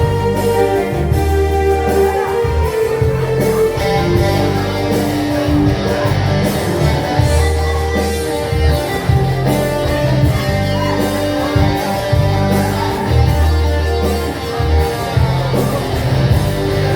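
Live band playing an instrumental break in a pop ballad, with guitar leading over bass and a steady beat.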